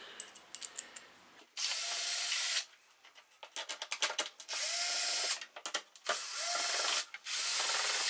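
Cordless drill-driver with a hex socket bit running in four short bursts of about a second each, each spinning up quickly at the start, as it unscrews the screws holding a refrigerator's evaporator cover panel. Light clicks and rattles of handling come between the bursts.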